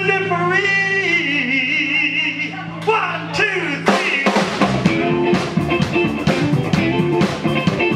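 Live blues-rock band: a male singer holds a long, wavering note over a sustained chord, then about four seconds in the drum kit and guitars come back in and the full band plays on.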